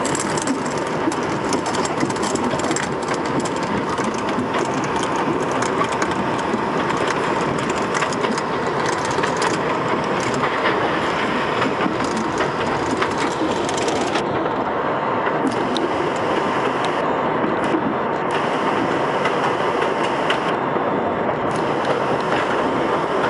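An R62A subway car running at speed on elevated track: steady rolling and rumbling wheel noise with repeated sharp clicks from the rails and a steady high whine.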